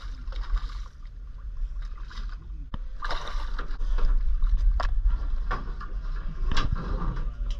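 A hooked jack splashing at the water's surface, then lifted out and swung onto the boat's deck, landing with a few sharp knocks and flaps, over a steady low rumble.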